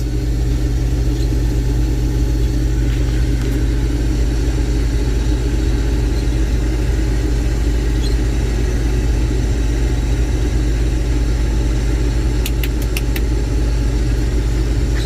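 Combine harvester running steadily while harvesting: a constant, even drone of engine and threshing machinery. A quick run of light clicks comes near the end.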